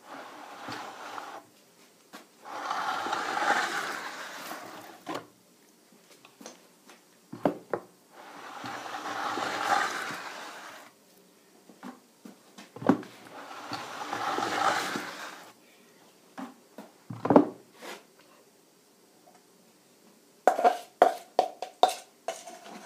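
A plaster cornice running mould, a wooden horse with a metal profile plate, scraped along the moulding as it is pushed down the bench: three passes of a few seconds each. Between the passes there are single knocks as it is lifted and set back, and a quick run of sharp taps near the end.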